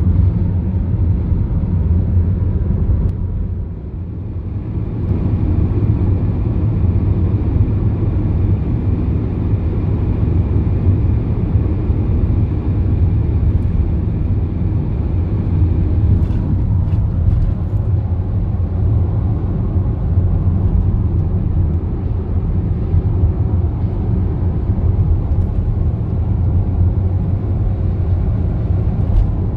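Car driving along the road: a steady low rumble of road and engine noise that eases briefly a few seconds in.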